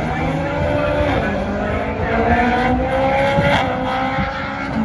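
Rally car engine accelerating hard on the circuit, its pitch dropping at a gear change about a second in and then climbing steadily, with a brief sharp crack about three and a half seconds in.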